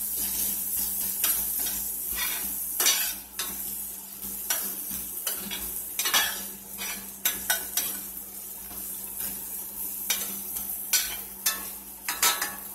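Garlic, ginger, green onion and orange zest sizzling in olive oil in a stainless steel pan, with a utensil stirring and scraping against the metal in short clicks and scrapes. Near the end, water is poured into the hot pan.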